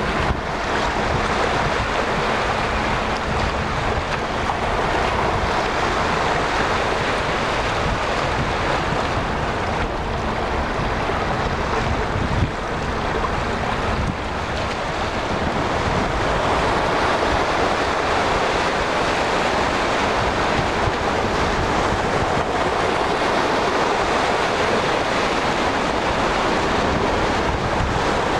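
Wind buffeting the microphone over a steady wash of sea waves.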